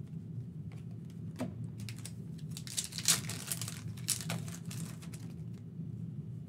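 Foil trading-card pack being torn open and crinkled, loudest from about three to four seconds in, amid soft clicks of cards being handled.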